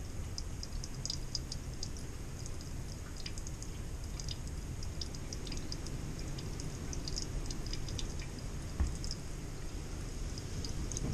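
Thin stream of water trickling from a faucet into a stainless steel sink, with irregular small ticks and spatters, and a single thump about nine seconds in. Air is still trapped in the supply hose, so the flow comes only as a weak trickle.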